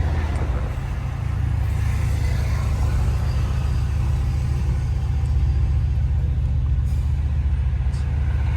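Mercedes-AMG C63 S engine running steadily while the car is driven, a continuous low rumble with no hard revving.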